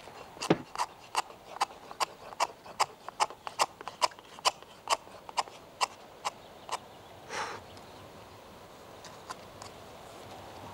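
A run of sharp, evenly spaced knocks, nearly three a second, that stops after about seven seconds. A brief swish follows, then a few scattered knocks.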